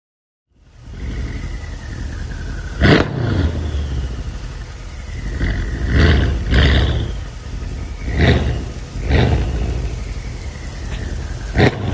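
Straight-piped Mercedes-AMG CLS 63 S twin-turbo V8 running with a deep exhaust rumble and revved in short blips, with about half a dozen sharp cracks from the exhaust.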